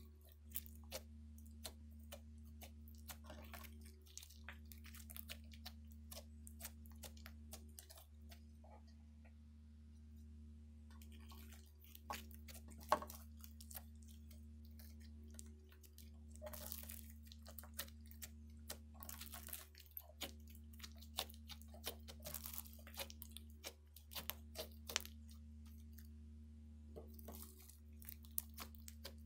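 Hands kneading and pressing a lump of slime with small beads mixed in, giving irregular crackling clicks and squishes in clusters with short pauses, and one sharper snap about halfway through. A steady low hum runs underneath.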